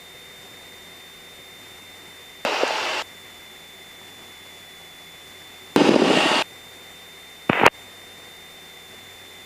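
Light-aircraft headset audio: steady hiss with three short bursts of noise that switch on and off abruptly, about two and a half seconds, six seconds and seven and a half seconds in, the middle one loudest. The bursts are typical of the radio or intercom briefly opening with static.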